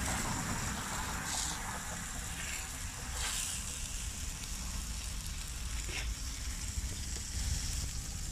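A barbacoa-and-cheese flour-tortilla quesadilla sizzling steadily in beef fat on a flat steel griddle. A few short scrapes come from the metal spatula folding it over.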